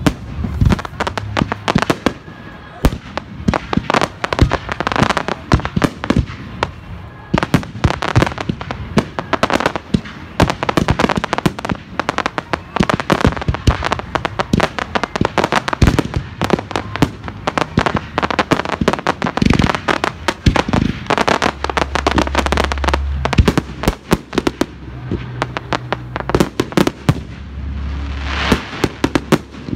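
Aerial fireworks bursting in rapid, near-continuous succession: a dense run of sharp bangs and crackling, with deeper booms now and then.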